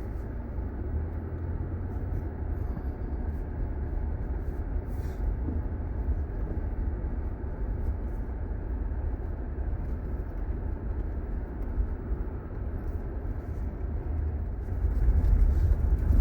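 Steady low road rumble of an SUV driving, growing louder near the end.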